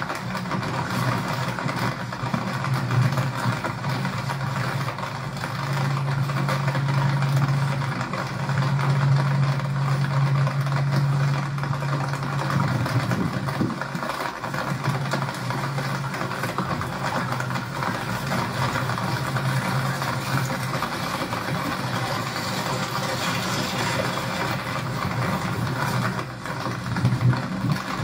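Vehicle engine running with a steady low hum over a haze of road noise on a wet lane.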